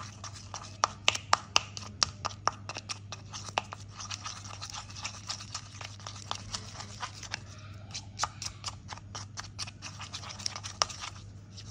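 Spatula stirring and scraping thick cream around a plastic bowl: a run of quick, irregular clicks and scrapes, thinning out in the middle and picking up again later.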